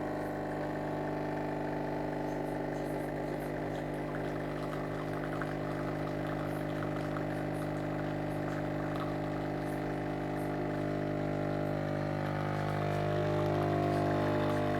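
Sencor SES 8500BK fully automatic espresso machine running its pump, a steady buzzing hum with water flowing and pouring through the machine. The sound swells slightly and shifts in tone a few seconds before the end.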